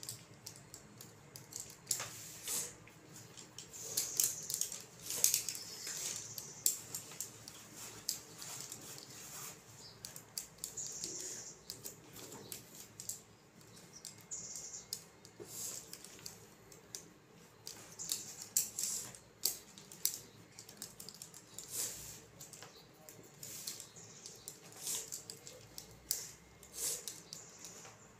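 Abacus beads flicked with the fingers in quick, irregular clicks while an addition sum is worked, with a pen scratching on paper now and then.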